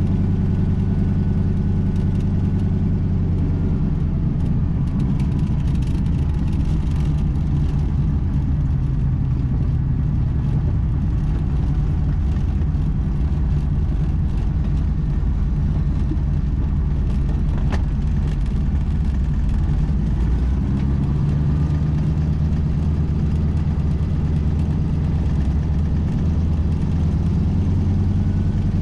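The AT-6 Texan's nine-cylinder Pratt & Whitney R-1340 radial engine, heard from inside the cockpit, running steadily at low power while taxiing and holding before takeoff. Its note shifts slightly about four seconds in and again about twenty seconds in.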